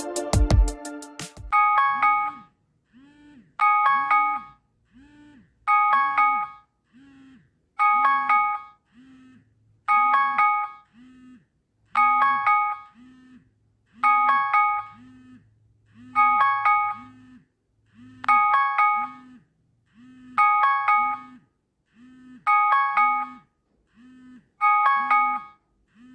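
UMobile 10 Pro 5G phone ringtone. An electronic music tune with a beat cuts off about a second and a half in. Then a short chime phrase of several tones repeats about every two seconds, with a lower tone sounding between the chimes.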